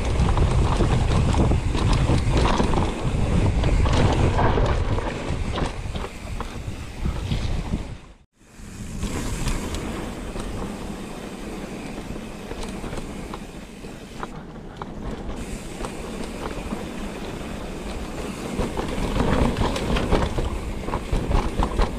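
Mountain bike riding down a dirt trail: wind rumbling on the microphone, tyre noise and scattered rattling clicks from the bike. The sound cuts out for a moment about eight seconds in and continues with less wind rumble.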